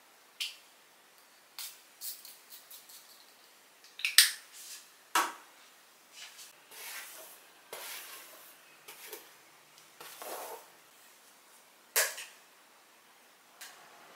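Scattered sharp clicks, taps and knocks of small hard objects being picked up and set down on a shelf, with soft rustling in between. The sharpest knocks come about four and five seconds in and again near twelve seconds.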